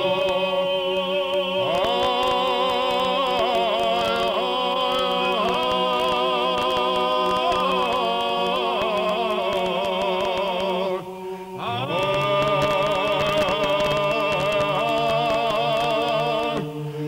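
Male choir singing a Georgian polyphonic song: wavering, ornamented upper voices over a steady held bass drone. The voices break off briefly about eleven seconds in, then resume.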